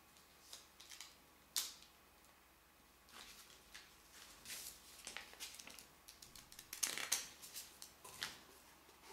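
Light handling noise of phone packaging: a cardboard box, a paper sheet and small accessories being picked up and set down, giving scattered rustles and clicks, with a sharp click about a second and a half in.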